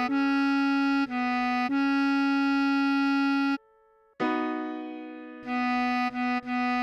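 Bass clarinet playing a slow melody of held single notes. It breaks off briefly about three and a half seconds in, and then a note fades away before the melody picks up again.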